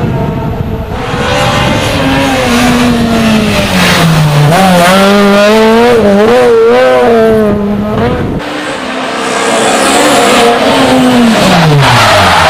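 Rally car engine at full throttle on a special stage, revving hard, with the pitch wavering rapidly up and down in the middle as the throttle is worked. After an abrupt cut, a car comes through again and its engine pitch drops sharply as it goes past near the end.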